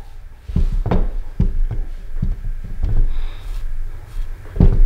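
Hands-on handling noise while a wire-core fly brush is wound around a hook in a fly-tying vise: a string of dull knocks and light rubbing, the loudest knock near the end.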